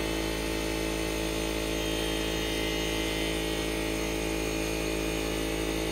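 A steady mechanical hum at one constant pitch, with no knocks or clanks.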